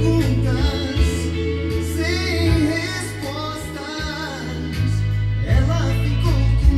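A song with singing over a steady bass line, played from a CD through a Gradiente Model 120 stereo integrated amplifier and heard over its loudspeakers.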